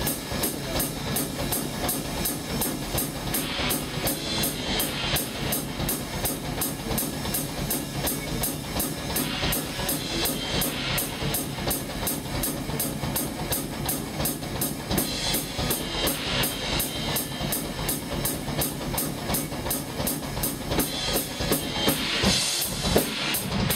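Drum kit played in a fast, steady thrash metal beat, bass drum and snare driving an even rhythm, with cymbal crashes recurring every few seconds.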